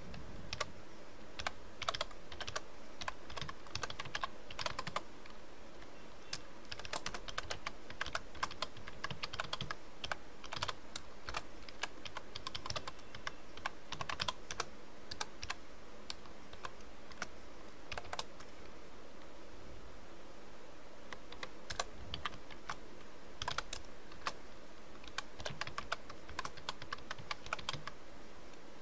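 Computer keyboard typing: irregular runs of quick keystrokes with short pauses between them.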